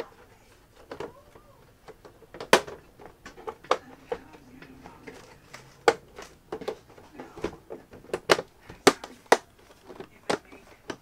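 Irregular sharp clicks and knocks of the plastic casing of a Dell Inspiron One all-in-one PC being handled and shifted on the bench during disassembly.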